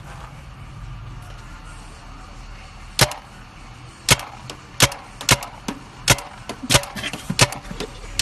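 Paintball gun firing a rapid, uneven volley of about eight sharp cracks, starting about three seconds in.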